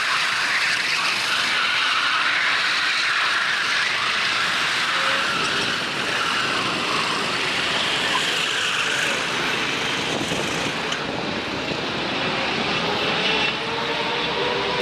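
Racing kart engines running hard at high revs, a steady high-pitched engine noise with several engines overlapping. A lower engine note comes in near the end.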